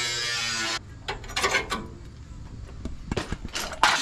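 Angle grinder with a cut-off wheel cutting the sheet steel at the front of a Nissan 240SX body, its motor pitch wavering under load. It stops abruptly about a second in, followed by a few scattered knocks and scrapes and one sharp loud hit near the end.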